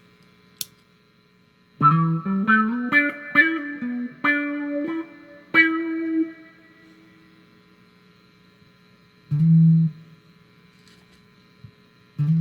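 Squier Jazzmaster electric guitar played through a handmade envelope filter (auto-wah) pedal into a Roland JC-120 Jazz Chorus amp: a quick run of single picked notes about two seconds in, a pause, then one low note, with more notes starting near the end.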